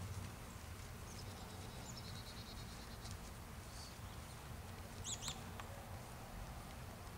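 Outdoor ambience with a steady low rumble, over which small birds chirp: a rapid high trill about a second in and two sharp chirps about five seconds in.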